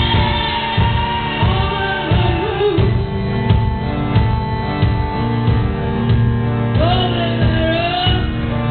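Live band playing a song: a steady beat with sustained low notes, and sung phrases that come in about a second in and again about seven seconds in.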